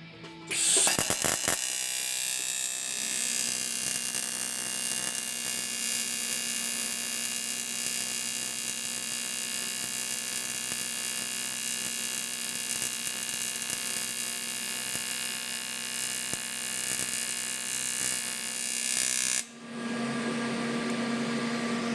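Welding arc buzzing steadily on aluminium, melting the metal without filler rod. It cuts off suddenly near the end, leaving a steady machine hum.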